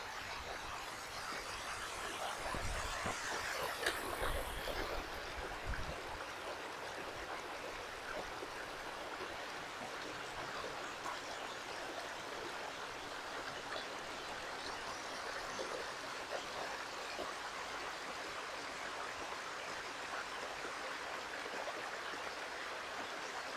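Small woodland stream pouring down a series of rocky cascades: a steady rush of water.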